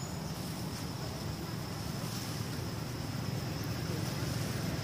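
Steady outdoor ambience: a low, even rumble with a constant high-pitched insect drone over it.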